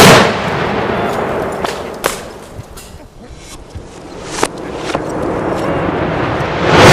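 Fireworks going off: a loud bang at the start, then a hissing crackle with scattered sharp pops, and a second loud bang near the end.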